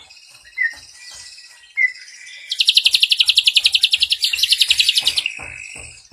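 Ashy drongo singing: two short rising whistles, then a fast ringing trill of about a dozen notes a second that lasts nearly three seconds, the 'cililin' phrase.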